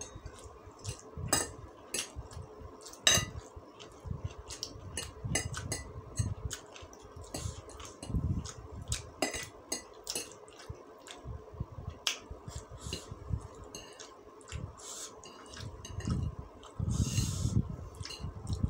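Metal fork and spoon clinking and scraping on a ceramic plate as fried noodles are stirred and scooped, with many sharp clicks throughout. Chewing and mouth sounds come in between, fullest near the end.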